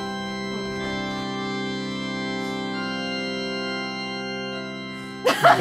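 Organ music: slow, sustained chords, the chord changing about halfway through, stopping abruptly near the end.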